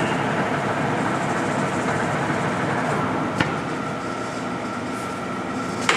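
American Pacemaker engine lathe running under power, its headstock gearing and 10-horsepower drive spinning the 18-inch four-jaw chuck with a steady mechanical whir. A sharp click a little over three seconds in as a control lever is moved, after which the machine runs slightly quieter with a thin steady whine.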